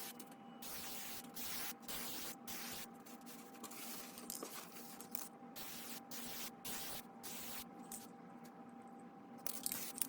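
Clear coat being sprayed onto small car badges in a series of short hissing bursts with brief pauses between them, over a steady hum.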